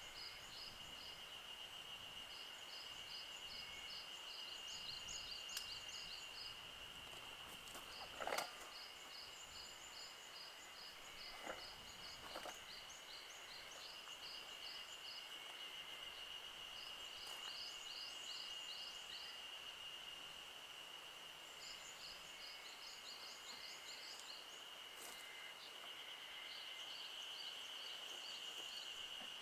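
Outdoor summer ambience: a steady, high-pitched insect drone with repeated phrases of rapid high chirping every few seconds. A few soft knocks of camping gear being handled at the back of a Jeep, the loudest about eight seconds in.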